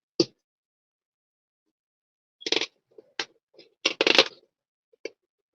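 Tape being peeled off a painted helmet shell in short crackling pulls: five or so brief rips spread over a few seconds, the longest near the middle.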